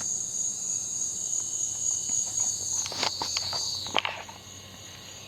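A chorus of insects giving a steady, high-pitched buzzing trill that cuts off abruptly about four seconds in. A few soft steps or rustles are heard just before it stops.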